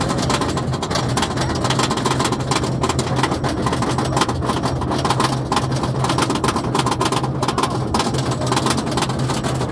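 Roller coaster train being hauled up the lift hill: the lift chain and track clatter with rapid, continuous clicking over a steady low mechanical hum.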